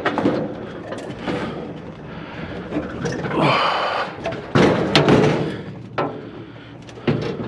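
A light metal barbecue grill being handled and loaded onto a trailer: several knocks and bangs, with a scraping rattle about three and a half seconds in and the loudest bangs near the middle and end.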